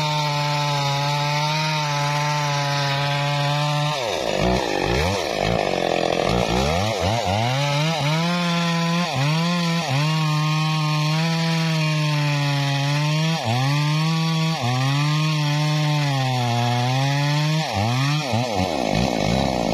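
Stihl two-stroke chainsaw cutting into a teak trunk at high revs. The engine note holds steady for the first few seconds, then repeatedly drops and climbs back up as the saw works through the wood.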